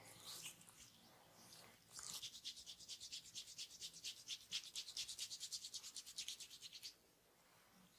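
Hands rubbing rapidly back and forth in a massage, about eight to ten quick strokes a second. It starts about two seconds in and stops a second before the end, after a few softer scuffs.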